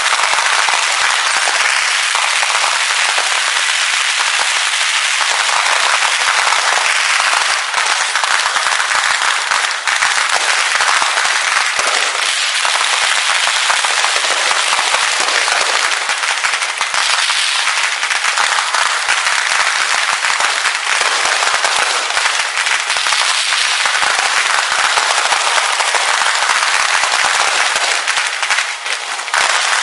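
Fireworks display heard as a dense, continuous crackle of rapid pops and small bangs, with little deep boom.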